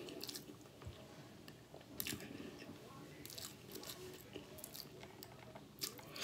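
A person chewing a mouthful of hard-boiled egg as fast as possible: faint, irregular wet mouth clicks and smacks.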